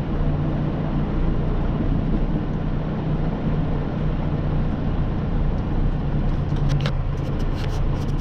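Steady engine and road rumble of a semi-truck driving, heard from inside the cab. A few sharp clicks come near the end.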